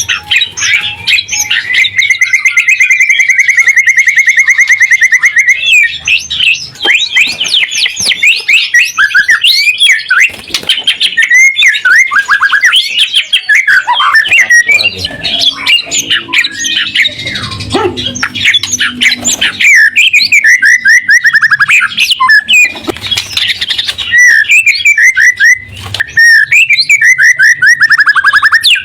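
White-rumped shama singing in full, loud song: varied whistles and chattering phrases, broken by fast rattling runs of rapidly repeated notes near the start, about two-thirds of the way in, and again near the end.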